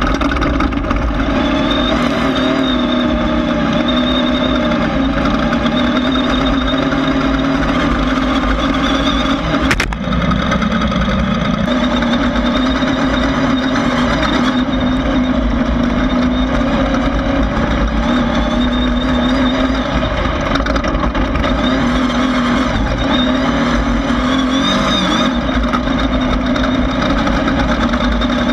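Class 1600 off-road race buggy's air-cooled Volkswagen engine running hard at fairly steady revs. A single sharp knock comes about ten seconds in.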